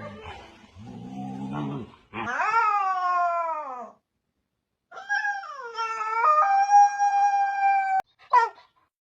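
Husky puppy howling: two low grumbles, then a long howl falling in pitch, then a second long howl that dips and holds steady before cutting off, and a short yip near the end.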